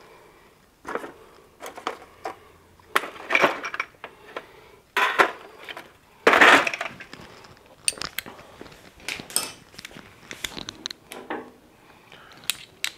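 Metal hand tools clinking and clattering at irregular intervals as a socket set is handled, with a few louder clanks about three and a half, five and six and a half seconds in.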